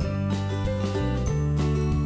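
Instrumental background music with a steady run of notes.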